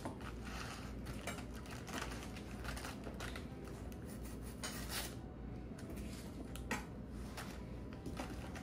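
Knife cutting a romaine lettuce heart on a plastic cutting board: irregular crisp cuts and light taps of the blade on the board.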